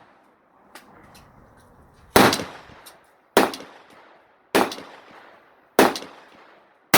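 Rifle shots: five in a steady series about a second apart, each with a short echoing tail.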